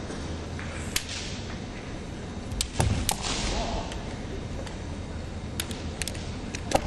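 Bamboo shinai clacking against each other in sharp, scattered clicks as the two kendo fighters probe at each other's blades, with a dull thud a little before three seconds in, over the steady background of the arena.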